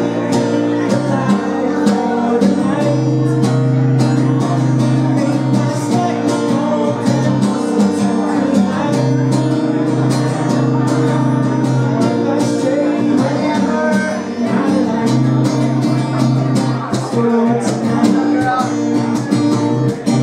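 Live solo performance: an acoustic guitar strummed in steady, ringing chords, with a man singing into a microphone over it.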